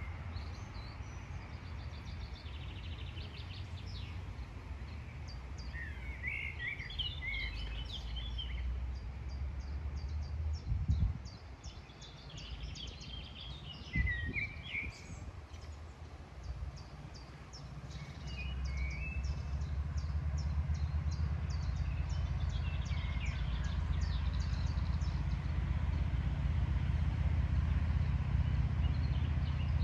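Wind noise rumbling on the microphone, heavier in the second half, with songbirds singing in short chirping phrases and a high ticking call repeating a few times a second. Two dull thumps come near the middle.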